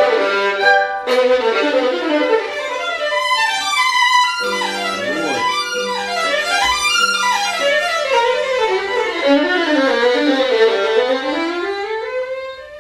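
Solo violin playing. About three seconds in it breaks into fast runs that sweep up and down, over a steady low note held for several seconds in the middle.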